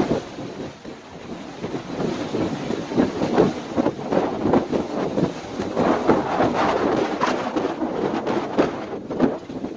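Storm-force winter wind blowing hard against the microphone, a dense rushing noise that swells and drops in irregular gusts.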